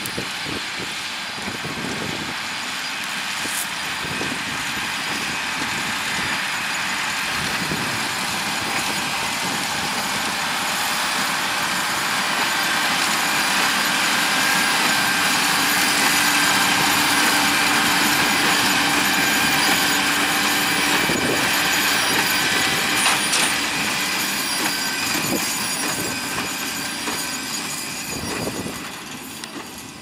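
John Deere 6250R tractor's six-cylinder diesel running under load as it pulls a Case IH LB436 HD large square baler picking up and baling straw, the baler's mechanism clattering along with the engine. The sound swells as the outfit passes, loudest about halfway through, then eases off near the end.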